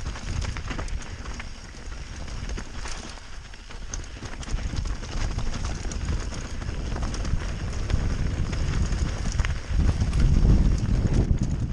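Mountain bike rolling down rocky dirt singletrack: tyres crunching over loose stones, with many small clicks and knocks from the bike rattling. Wind buffets the microphone, louder near the end.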